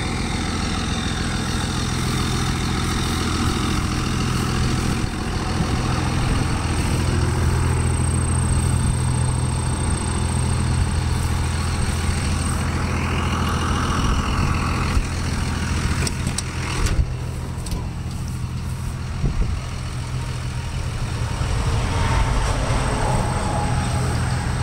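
A vehicle engine running steadily: an even low drone, heard from inside the cab.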